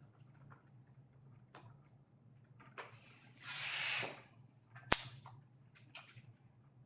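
Short hiss of air as a little air is put into a bicycle inner tube to give it shape, followed about a second later by one sharp click.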